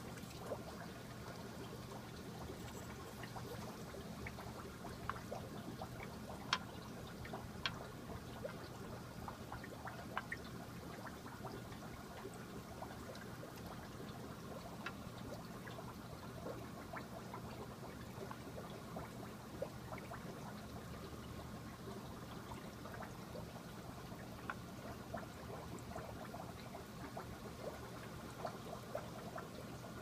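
Aquarium water trickling and dripping over a steady low hum, with scattered small clicks.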